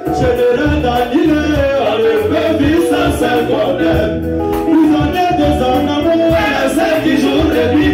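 Live zouglou music played loud through a club sound system, with a steady bass beat and male singers on microphones.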